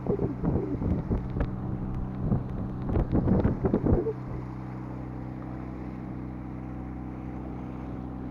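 A sailboat's engine runs at a steady low drone as the boat motors into a bay. Irregular gusts of wind buffet the microphone over the first four seconds, then the drone carries on alone.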